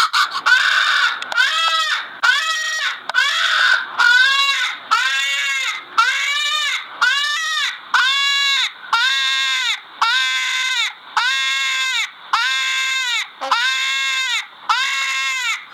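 An animal calling over and over: about fourteen drawn-out cries, roughly one a second, each rising and then falling in pitch.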